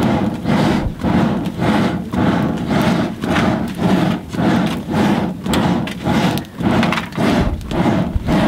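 Traditional blacksmith working by hand: steady, evenly repeated noisy strokes, about two a second.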